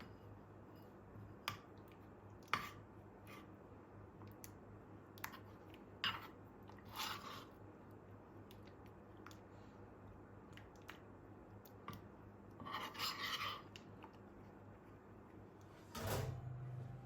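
Quiet handling sounds: scattered light clicks and taps, with brief rubbing or scraping sounds twice and again near the end, over a low steady hum.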